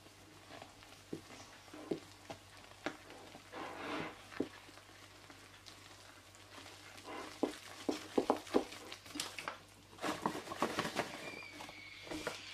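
Wooden spoon stirring flour into a wet baklava dough in a glass bowl: irregular soft knocks and scrapes of the spoon against the glass, coming thicker in the second half.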